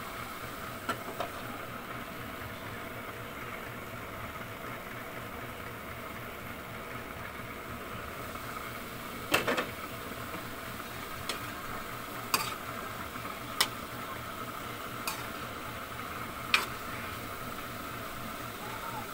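Chicken and vegetable strips sizzling steadily in a metal wok, with a metal spatula knocking and scraping against the pan several times, the sharpest clicks coming from about nine seconds in.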